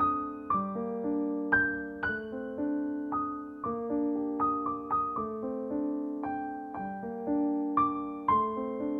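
Slow solo piano music: single melody notes struck about once or twice a second, each fading away over held lower notes.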